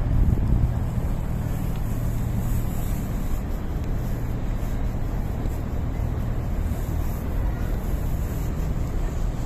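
Steady low outdoor background rumble, with no distinct events.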